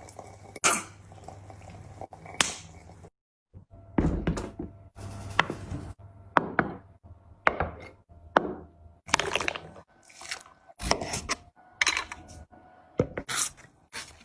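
Close-miked eating sounds: a string of short bites, chews and mouth smacks with brief pauses between them.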